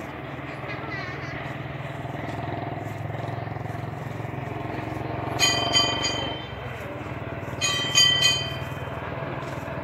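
A vehicle horn honking in two bursts of a few quick beeps, about two seconds apart, over a steady low hum of distant traffic.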